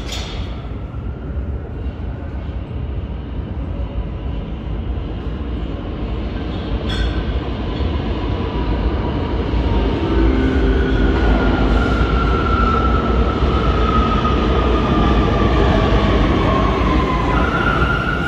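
New York City subway train pulling into the station, its rumble growing louder. A whine slides steadily down in pitch for several seconds as the train slows, then jumps to a higher steady tone near the end.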